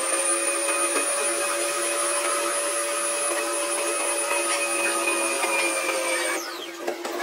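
Small electric motor running with a steady high whine and hiss, then winding down and stopping near the end.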